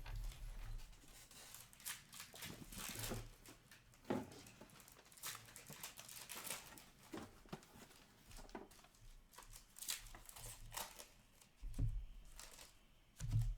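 Trading-card packs being handled: foil wrappers crinkling and tearing and cards rustling, with a few soft knocks near the end.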